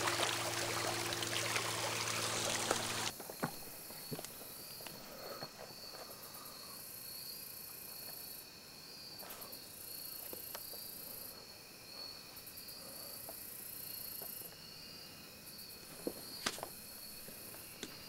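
Rushing creek water for about three seconds, then an abrupt cut to a steady chorus of crickets and other insects trilling high and thin, with a few light clicks near the end.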